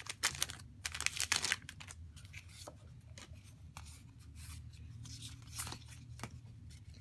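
Foil wrapper of a Pokémon booster pack crinkling as the cards are pulled out, loudest in the first second and a half. Then quieter sliding and soft flicks of the trading cards being moved through the hand.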